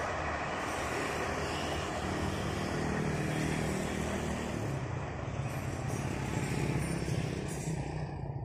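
Steady rumble of a motor vehicle running nearby, swelling around the middle and again near the end, over the fading sound of an electric commuter train moving away down the track.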